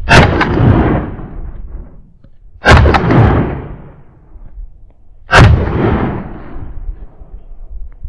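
Shotgun fired three times, roughly two and a half seconds apart, each shot followed by a long fading echo.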